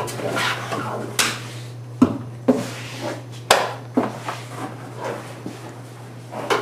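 Sharp, irregular knocks, clunks and scraping as a side curtain airbag is pried and pulled loose from the roof rail of a stripped Chevy Tahoe, about half a dozen hard knocks in all.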